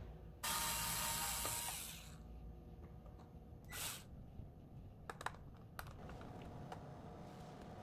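Handling noise from the plastic body of a small underwater drone being turned over on a cloth-covered table: a sudden rushing scrape of about a second and a half, a shorter swish, then a few light clicks.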